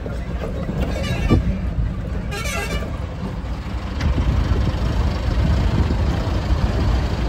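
Heavy truck's engine running with a steady low rumble while driving, with a brief wavering horn toot about two seconds in.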